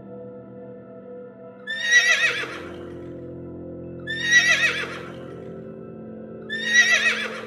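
A high, wavering animal call, repeated three times about two and a half seconds apart, each about a second long, over steady background music.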